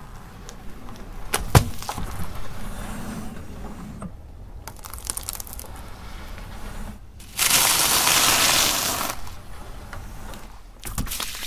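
Car tyre rolling over and crushing objects on concrete: a sharp pop about a second and a half in as a paper packet gives way, followed by crackling, then a couple of seconds of loud, dense crunching a little past halfway as a row of small white candies is ground to fragments.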